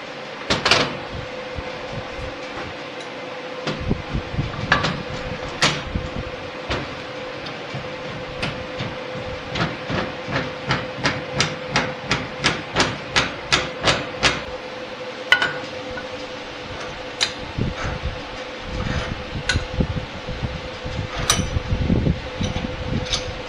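Metal clicks and knocks from hand work on a cast bench vise, including a quick even run of about three clicks a second around the middle, over a steady background hum.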